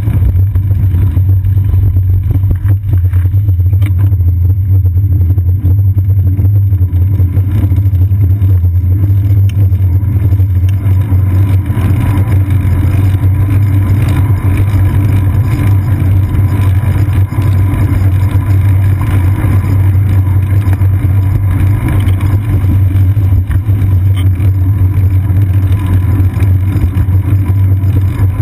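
Steady, loud low rumble of a bicycle rolling over wet city pavement, carried up the seat post into a GoPro Hero 2 mounted there, with no distinct events standing out.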